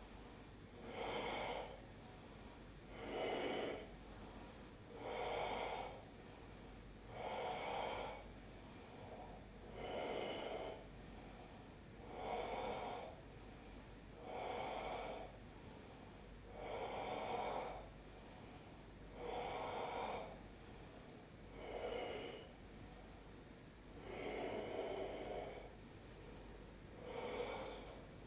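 Slow, even ujjayi yoga breathing, each breath drawn and let out through a narrowed throat with a soft, hoarse rush. There is a rush about every two seconds, each lasting about a second.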